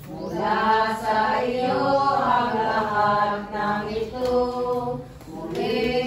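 Voices singing a slow hymn during Communion at Mass, with long held notes and a brief break between phrases about five seconds in.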